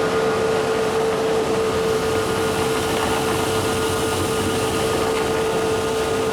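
Machinery running steadily: a constant drone with a steady whine held at one pitch.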